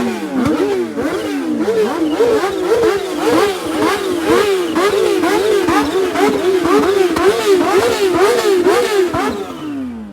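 Inline-four superbike engine revved over and over in quick blips, its pitch climbing and dropping about two to three times a second, easing off near the end.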